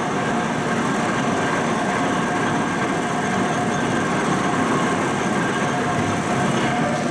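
A train running on rails: steady running noise with a few faint steady whining tones. It changes abruptly near the end.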